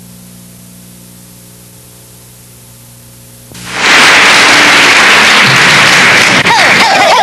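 Low steady electrical hum, then about three and a half seconds in a sudden loud hiss of noise that holds at full loudness, with a few gliding tones coming through near the end.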